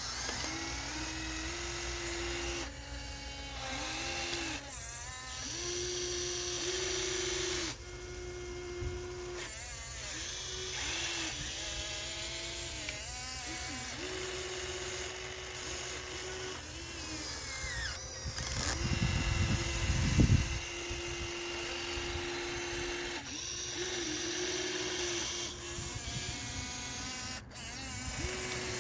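Small electric gear motors of a Huina RC excavator whining in short runs, their pitch rising and falling as they start and stop. About two-thirds of the way through there is a louder low rumble.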